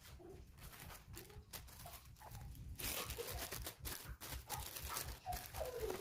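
Scratchy rustling and crackling handling noises, louder from about halfway, with a dove cooing near the end.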